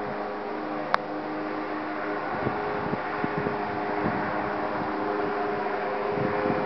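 Steady outdoor hum of distant traffic and wind. A single sharp click comes about a second in, and from about two seconds in there are irregular low gusts buffeting the microphone.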